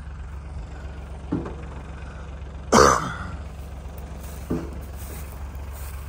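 A vehicle engine runs steadily at idle. Three short, sharp sounds rise over it, the loudest a little before the middle.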